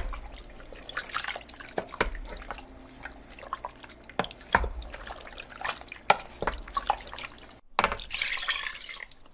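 Wooden spoon stirring chunks of raw lamb in wet spice mix in a stainless steel pot: irregular wet squelches and knocks against the pot. Near the end, water pours steadily from a glass measuring cup into the pot.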